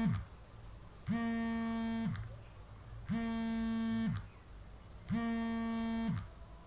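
Smartphone set to vibrate, buzzing with an incoming call: three one-second buzzes, each about two seconds after the last.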